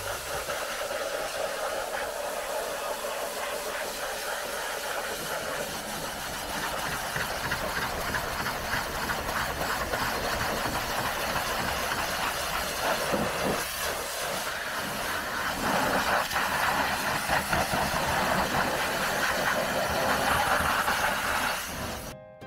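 Pressure washer jet spraying water onto a car's bodywork: a steady hiss, louder from about 16 to 21 seconds in, cutting off shortly before the end.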